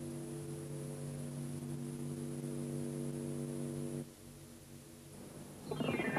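Steady electrical mains hum made of several evenly spaced tones, cutting off about four seconds in. After a quieter moment, music starts shortly before the end.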